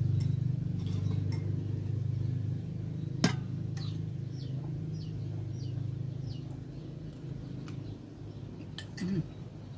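Metal fork scraping and clinking against a ceramic plate while scooping rice, with one sharp clink about three seconds in, over a steady low hum.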